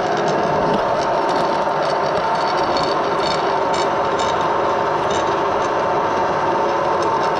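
Edgwick metal-turning lathe running under power during thread cutting, a steady drone with a constant whine. A few light ticks come through around the middle.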